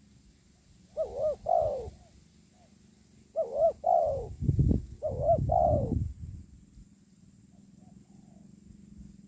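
Spotted dove cooing: three phrases of its soft, looping coo, a couple of seconds apart. A low rumble sits under the second and third phrases.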